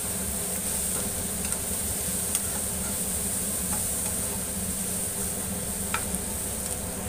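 Metal spatula stirring a vegetable mixture in a metal kadai over a steady sizzle of frying, with a couple of light clicks along the way. The onion, capsicum, green chilli and tomato filling is being mixed with freshly added spices.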